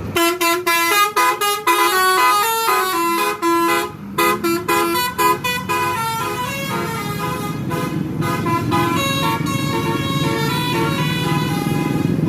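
Indonesian tour bus's Basuri telolet horn playing a quick melody of short stepping notes. The notes come choppy, with gaps, for the first few seconds, then run on more smoothly. A bus engine's rumble grows underneath about halfway through.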